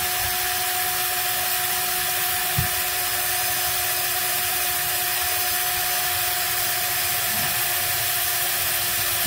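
Cordless high-speed drill running at steady full speed, drilling a starter hole into a galvanized sheet-metal HVAC plenum. The motor's whine holds one steady pitch, with a faint knock about two and a half seconds in.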